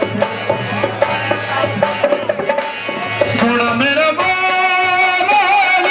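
Manqabat devotional song: dhol drums beat a steady rhythm under a man's singing. About four seconds in, the voice settles into a long held note that wavers in pitch.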